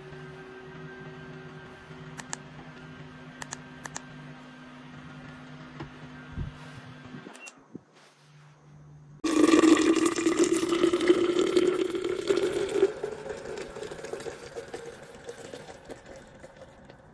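Water pouring into a glass pitcher of tea. It starts suddenly about halfway through, its pitch rising slightly as the pitcher fills, then trails off near the end. Before it there is a low steady hum with a few light clicks.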